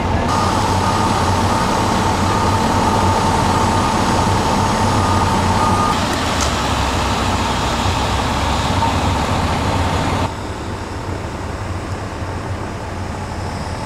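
Ambulance idling: a steady, loud engine and motor running noise with a constant high whine over it. The sound shifts at edits about six and ten seconds in, and is quieter after the second one.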